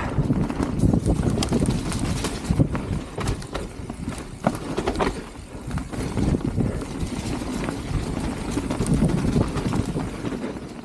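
Mountain bike riding down a muddy, rough trail: the tyres rumble over dirt and mud, and the bike rattles and knocks irregularly as it bounces over roots and rocks.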